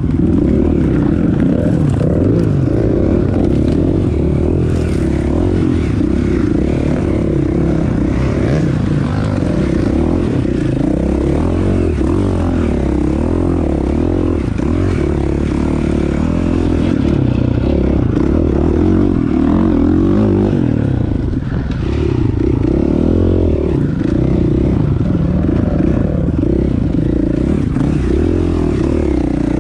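Dirt bike engine running under load, its pitch rising and falling with the throttle, with brush and branches scraping against the bike as it pushes through.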